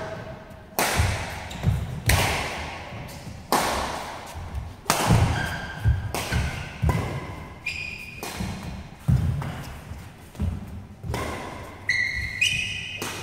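Badminton rally: rackets striking a shuttlecock, sharp hits about every second or so, back and forth, echoing in a large hall. A few short squeaks from court shoes on the mat.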